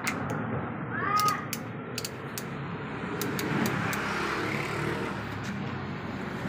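Steady low rumble of background noise with scattered light clicks and knocks, and a brief gliding squeak about a second in.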